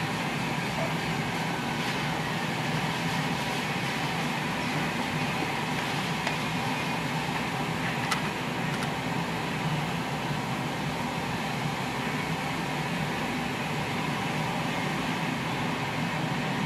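Steady mechanical hum and hiss, with two faint clicks about eight seconds in.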